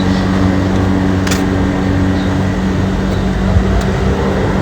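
GMC Denali V8 engine idling with cylinder 5 dead and misfiring, a steady hum; the cause is the cylinder 5 ignition coil's wire hanging off its connector. A single sharp click about a second in.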